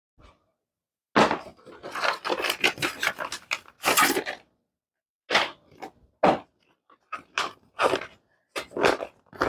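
Packaging being handled during an unboxing: a run of crinkling and rustling lasting about three seconds, then a string of short, sharp rustles and knocks.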